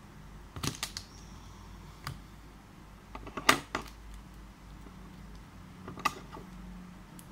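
Scissors snipping at a plastic button-cell battery blister pack: four short clusters of sharp clicks, the loudest about halfway through.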